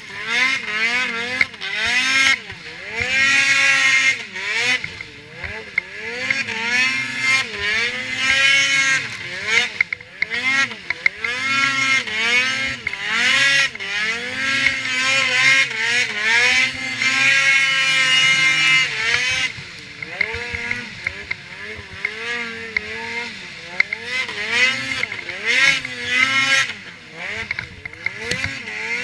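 Ski-Doo Freeride 800's two-stroke twin engine revving up and down again and again under throttle while the sled ploughs through deep powder snow.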